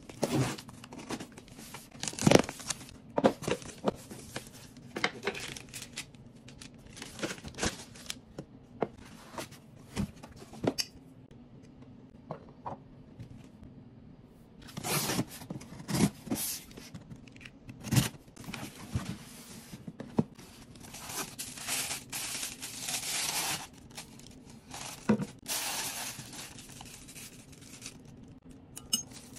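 Unboxing sounds: a box cutter slicing the tape on a cardboard box, and cardboard and paper packing being torn and rustled. Between them come sharp taps and knocks as items are handled and set down on a wooden table.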